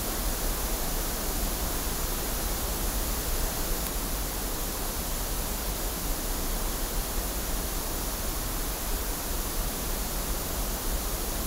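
Steady pink noise test signal played through a loudspeaker, heard as a continuous even hiss. It is being used to measure the frequency response of a Neumann U89 condenser microphone.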